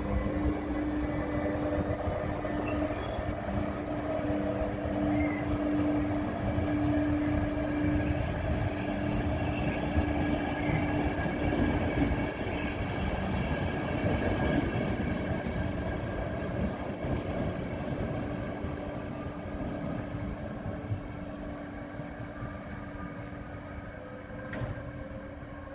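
Passenger train hauled by an electric locomotive pulling out and rolling past, its wheels running over the rails with a steady hum beneath. The sound slowly fades toward the end as the train moves away.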